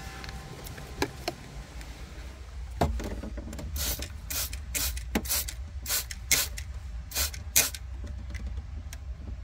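Trigger spray bottle of soapy water squirted about ten times in quick succession, a short hiss each, over the air-suspension compressor's fittings to check for leaks, starting about three seconds in. A low steady hum lies underneath.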